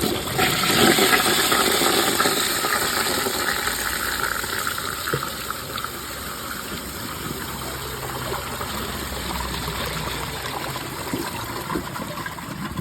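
A 2010s Vortens Vienna toilet flushing from an overfilled mid-height tank, with some of its rim jets blocked so the bowl water swirls in a tornado-like flush. A rush of water starts about half a second in, is loudest over the next second or so, then fades slowly into a steadier swirling wash.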